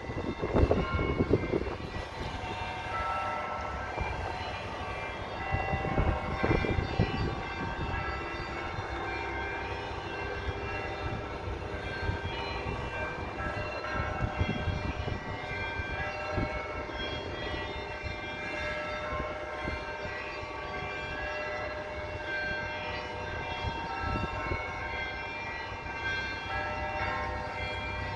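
Russian Orthodox church bells ringing: many bells struck in overlapping peals, their tones ringing on and layering over one another. Heavier low thumps come near the start and again about six seconds in.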